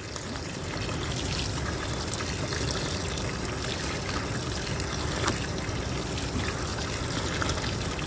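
Mountain spring water pouring steadily from a split wooden spout and splashing onto the stones below.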